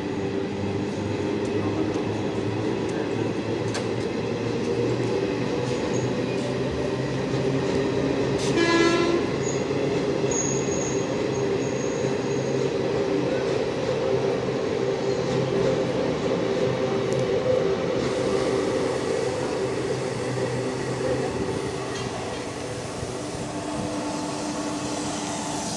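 Indian Railways passenger train coaches rolling past at low speed, a steady rumble of wheels on rail. A short horn blast sounds about nine seconds in.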